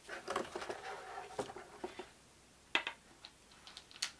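Game dice being handled and set down on a wooden tabletop: a run of light clicks and rattles over the first two seconds, then a single sharp click a little before three seconds in.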